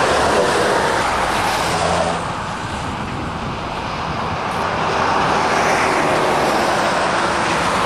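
Motorway traffic passing close by: a continuous rush of tyres and engines that eases off about two seconds in and swells again around five seconds in as more vehicles go past.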